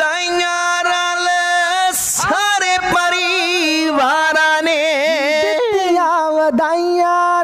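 Male voice singing a long wordless stretch of a Punjabi Sikh devotional song, holding drawn-out notes with a wavering vibrato. There is a short breathy break about two seconds in.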